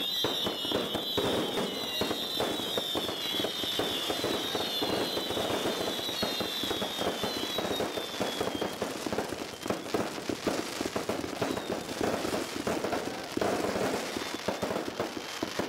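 Fireworks going off: a dense run of crackling pops and bangs. In the first half, high whistling tones slide down in pitch and fade out about halfway through.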